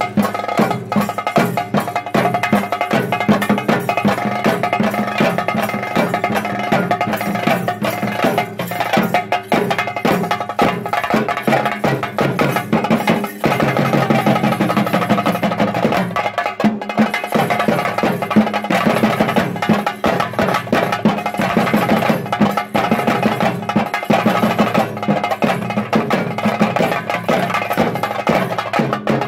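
Ritual drumming for a theyyam performance: fast, dense stick drumming with steady ringing tones held above it.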